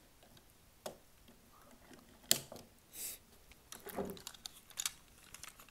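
Parts of a Legacy Collection Megazord toy clicking and knocking as it is handled and reassembled: a few scattered short clicks, the sharpest about two seconds in, and a softer knock near the end.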